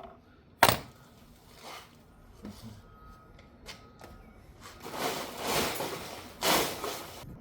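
Scattered handling noises while someone searches for a tool: a sharp knock about half a second in, a few faint knocks, then rustling with a louder scuff near the end.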